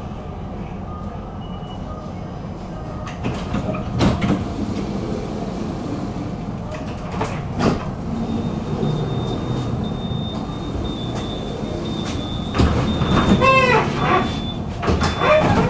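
Tram running along the track: a steady rumble with two sharp knocks from the rails and a thin high whine through the second half. Near the end come brief pitched, gliding sounds.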